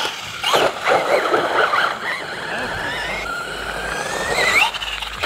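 Brushless electric motor of a Losi LMT RC mega truck whining under throttle; about three seconds in the whine climbs steadily in pitch for over a second, then cuts off abruptly when the throttle is let off. Just before this, right after the start, comes a short jumble of noise as the airborne truck comes down.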